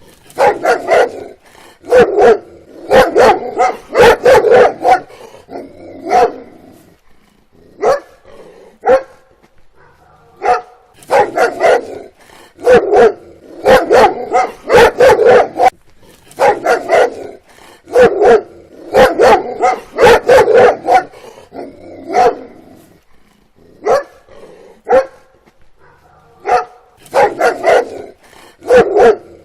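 A dog barking in quick runs of several sharp barks, with short pauses between the runs.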